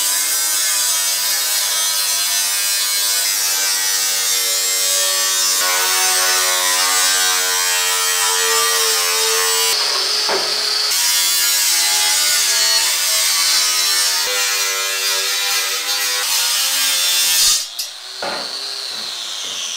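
Angle grinder with a cut-off disc slicing through a painted steel shelf panel, running steadily under load, its motor pitch wavering with the cut. Near the end the cut stops, the sound drops and the disc winds down with a falling whine.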